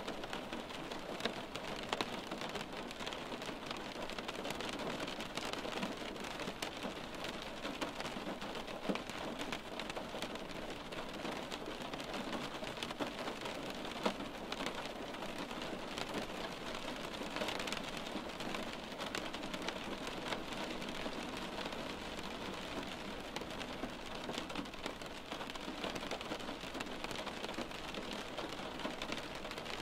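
Steady rain falling on window glass: an even hiss with many small, sharp drop taps scattered through it.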